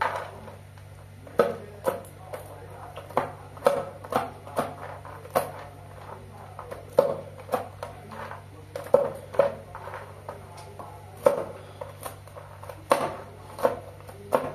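Kitchen knife chopping nuts on a plastic tray: sharp, irregular knocks of the blade striking the tray, about one to two a second.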